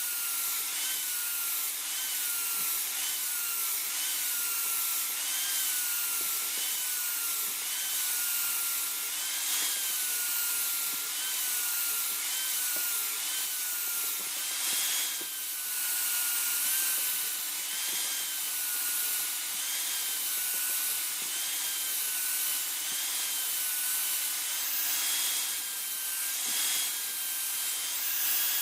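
A small power tool, most likely a grinder, working a steel khukuri blade: a steady rasping hiss with a motor whine that sags and recovers about once a second as the tool is pressed on and eased off, over a steady low hum.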